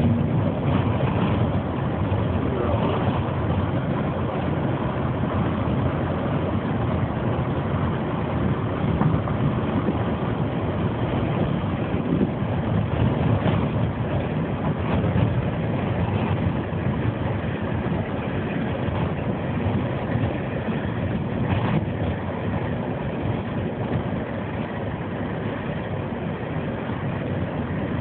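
Steady road noise from inside a taxi cab travelling along a highway: an even drone of tyres and engine, heaviest in the low end.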